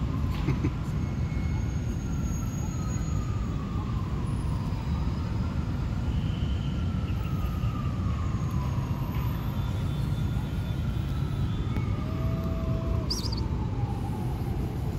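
Distant emergency siren wailing, its pitch slowly rising and falling every few seconds, over a steady rumble of city traffic.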